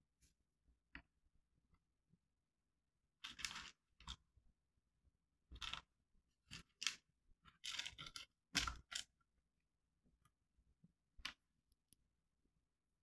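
Small plastic Lego bricks handled and pressed together: a run of short clicks and scrapes, bunched in quick clusters from about three to nine seconds in, with a single click near the start and another near the end.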